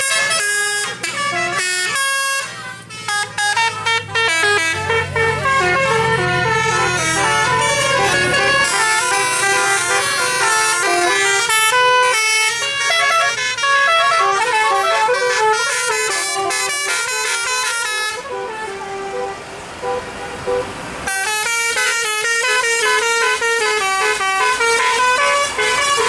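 Telolet horns: roof-mounted multi-trumpet air horns playing quick melodic tunes, note stepping after note. Near two-thirds through the tune gives way to a few seconds of hiss, then resumes with fast repeated notes.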